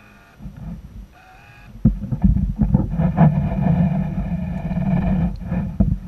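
Remote-control boat's motor and propeller, heard muffled through the water by an underwater camera: faint at first, then from about two seconds in a loud, steady low hum with scattered knocks.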